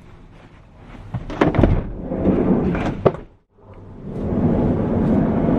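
Thumps and knocks over rumbling handling noise, with a sharp click about three seconds in; the sound drops out for a moment, then a steady rushing noise follows.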